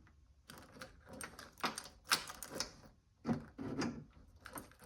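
Key going into and turning in a 1981 C3 Corvette's door lock cylinder, the lock mechanism giving a run of small metallic clicks and clacks, loudest about two seconds in and again just past three seconds.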